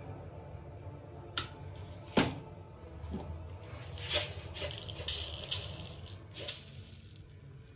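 Metal ladle stirring milk kheer in an aluminium pot: a few sharp clinks and scrapes against the pot, the loudest about two seconds in, then a run of lighter scrapes and taps between four and six and a half seconds, over a low steady hum.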